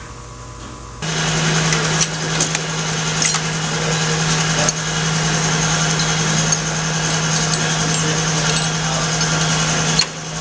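A machine starts abruptly about a second in and runs steadily with a constant low hum and hiss, with scattered clicks and knocks over it.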